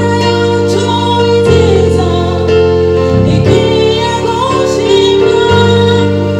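A woman singing a Kinyarwanda gospel worship song over sustained chords from a Yamaha PSR-S775 electronic keyboard, the chords changing every second or two.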